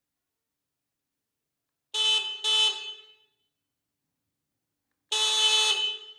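Basketball shot clock buzzer horn sounding a steady buzzy tone: two short blasts about two seconds in, then one longer blast about five seconds in.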